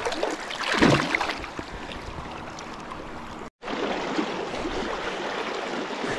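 Fast river current rushing steadily, with a splash about a second in as a sockeye salmon is let go into the water at the angler's feet. The sound drops out for a moment midway.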